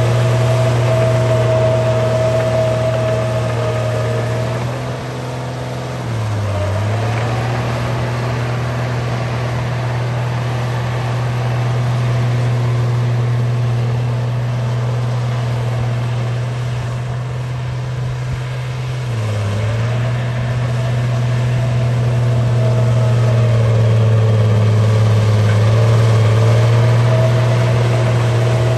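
Bulldozer engine running steadily with a deep hum. Its pitch dips briefly and recovers twice, about six seconds in and again near nineteen seconds, as the load or throttle changes.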